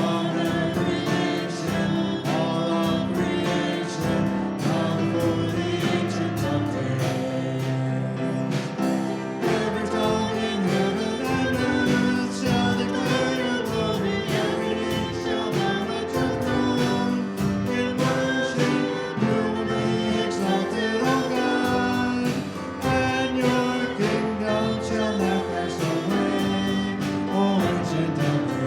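Congregational worship song: voices singing with an instrumental band, the bass coming in about a third of the way through.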